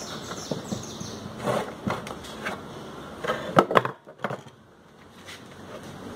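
A wooden pallet slat being shifted and set down across a motorcycle tyre on a wooden bench: a handful of knocks and scrapes, the loudest about three and a half seconds in.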